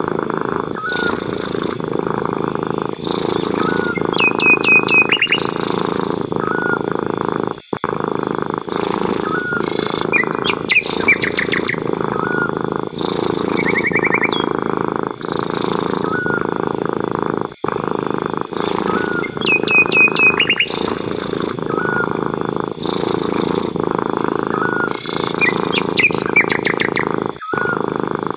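A cat purring loudly and steadily, with a breathy rhythm of about one breath every second and a half, while small birds chirp in short repeated phrases. The whole pattern repeats about every ten seconds, as a looped recording does.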